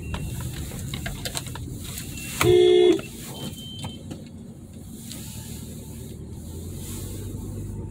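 Steady low road and engine rumble inside a moving car's cabin, broken about two and a half seconds in by one short car horn honk of about half a second, steady in pitch and cutting off abruptly.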